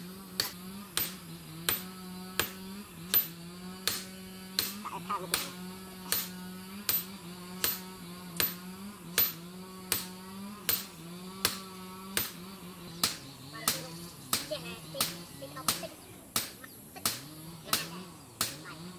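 Hand hammer striking a steel blade, forged from a car leaf spring, on a small steel anvil: evenly spaced sharp blows a little over one a second, coming faster, about two a second, in the last few seconds. A steady wavering hum runs underneath.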